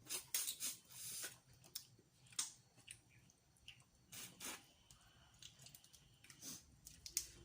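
Boiled seafood being cracked open and eaten by hand: irregular sharp cracks, clicks and wet squishing sounds in short clusters.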